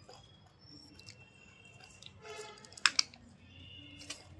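Hand work with a hot glue gun and corrugated cardboard: scattered light clicks and rustles, with two sharp, loud clicks in quick succession about three seconds in.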